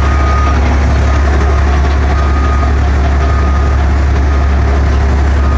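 A heavy diesel engine running with a steady low drone, heard from inside a large mining haul truck's cab. A faint short high beep comes and goes a few times over it.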